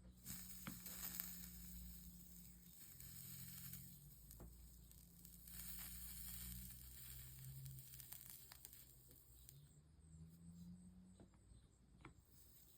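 Faint sizzling of flux and molten solder under a soldering iron running along stained-glass seams, in two stretches of a few seconds each with a few light clicks, over a low hum.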